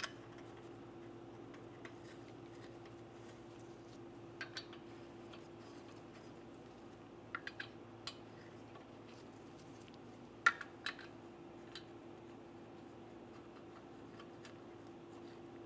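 Lug nuts being threaded by hand onto a car's wheel studs: scattered small metallic clicks and clinks, the loudest about ten seconds in, over a steady faint hum.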